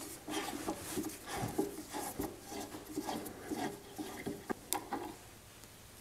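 Hand screwdriver backing an old screw out of the wooden chair seat: a run of short scrapes and creaks as the screw turns in the wood, with a sharp click near the end before it stops.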